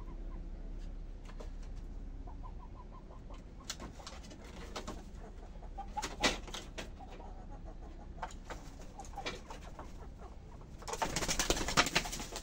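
Roosting hens giving soft, low calls, with scattered light clicks. About eleven seconds in, a loud burst of wing flapping as one hen flutters down off the bamboo perch.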